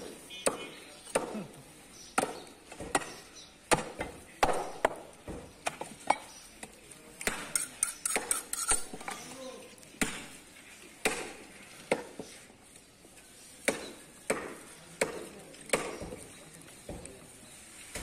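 Butchering on a wooden chopping block: sharp, irregular knocks, one or two a second, as beef is cut from the bone, with a quicker flurry of knocks and clinks about eight seconds in.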